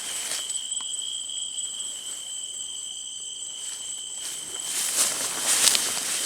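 Night insects singing in steady, high-pitched tones, with footsteps rustling through leaves and brush growing louder in the second half.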